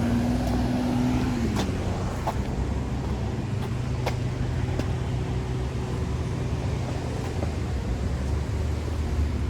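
A car engine running with a steady low hum; an engine tone holds, then drops in pitch about a second and a half in, as a passing vehicle does.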